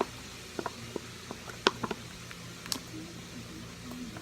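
Slime being squeezed and poked by hand, giving a scattered series of small sticky clicks and pops.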